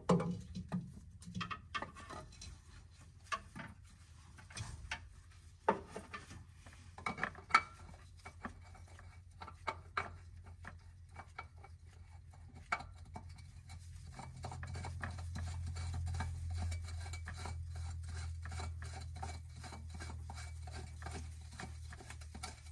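An oil filter being pushed up and spun by hand onto the engine's filter-housing threads: scattered clicks, taps and scraping, coming faster from about seven seconds in. A low steady hum rises from about fourteen seconds in.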